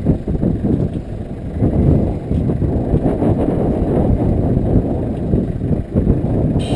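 Wind buffeting the GoPro's microphone: a loud, uneven low rumble.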